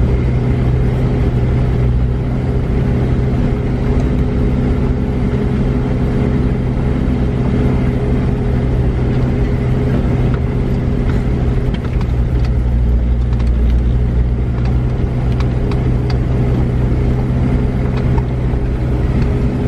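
Toyota truck's engine running steadily as it drives slowly over a gravel riverbed, heard from inside the cab, with scattered sharp clicks of stones under the tyres in the second half.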